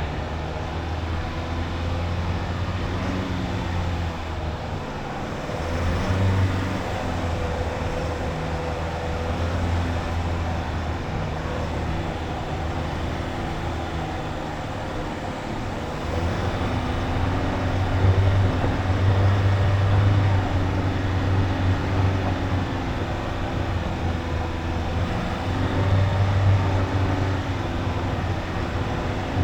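Dacia Duster 1.5 dCi four-cylinder turbodiesel engine running as the car drives offroad. It grows louder about halfway through and swells again near the end as the engine works harder.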